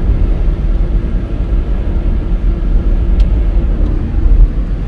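Steady low rumble of a car driving along a highway, heard from inside the cabin: engine and tyre noise on the road.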